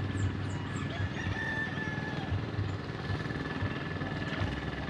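A rooster crowing, one drawn-out call about a second in, over a low uneven rumble.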